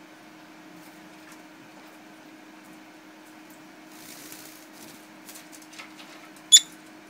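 A peach-faced lovebird gives one short, sharp chirp near the end, after a few faint rustles and small clicks, over a steady low hum in the room.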